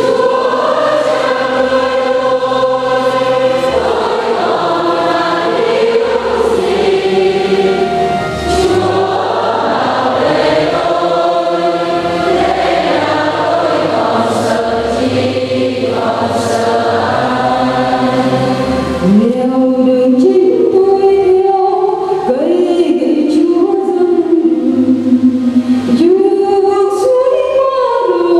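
Church choir singing a slow hymn in Vietnamese over a steady instrumental bass line. About two-thirds of the way through, the bass drops out and lighter singing with sliding notes carries on.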